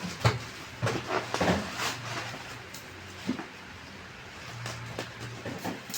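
Irregular knocks and clatters of things being handled, over a low steady hum.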